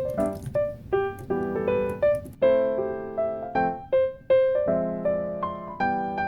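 Background music played on a piano or electric-piano keyboard: a gentle melody over chords, with the notes changing every half second or so.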